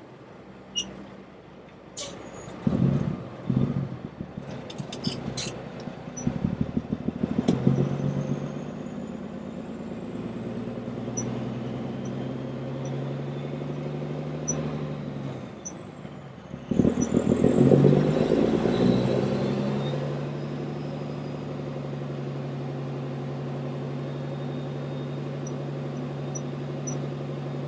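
Diesel semi truck driving off: a few clatters at the start, then the engine pulling with a faint turbo whistle climbing in pitch. Just past halfway it drops for a gear change, pulls hard again and settles into a steady drone.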